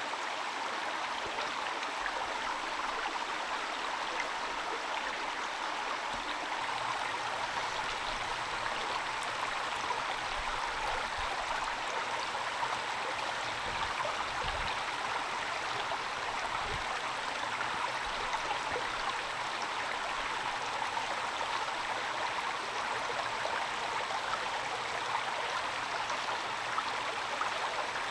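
Steady rain falling, an even unbroken hiss of water.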